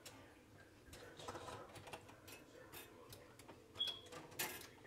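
Quiet scraping and light ticks as slices of bread are slid into the slots of a stainless-steel Toastmaster toaster. Near the end there is a short sharp metallic click with a brief high ring, then a louder rattle of the toaster's metal body.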